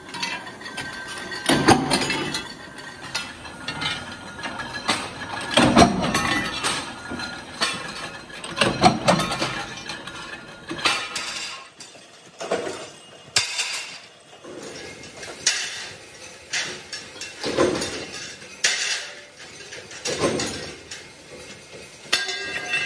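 Steel wheel-rim centre discs clanking and clinking as they are handled and tossed onto a pile of discs, a string of separate ringing metal impacts. The heavier clanks come in the first half and lighter, more frequent ones follow every second or two.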